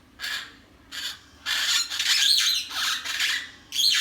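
Parrots squawking: two short harsh squawks, then from about a second and a half in a loud run of rapid, harsh screeching calls.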